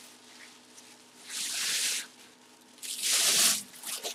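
Bubble wrap rustling and crinkling as it is pulled off a full-size football helmet, in two bursts about a second apart, the second louder.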